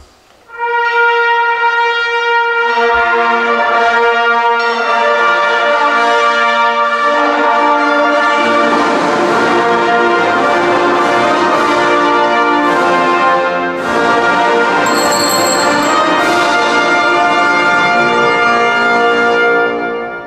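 Brass band playing slow, sustained chords that grow fuller about eight seconds in and fade out near the end.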